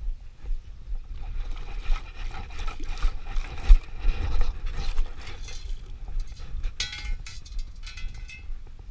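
Lake water splashing and sloshing as a perforated stainless-steel sand scoop is worked through the water and lifted, the water running out through its holes. Near the end come two short bursts of clinking and rattling as the scoop's contents are sifted by hand.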